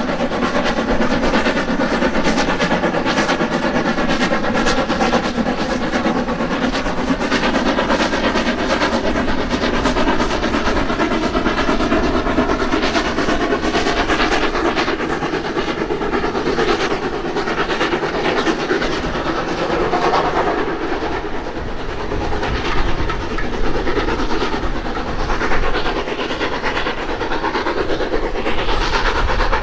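Hunslet saddle tank steam locomotive working a passenger train, with a continuous run of exhaust beats, a faint steady tone underneath, and the coaches' wheels clattering over the rails.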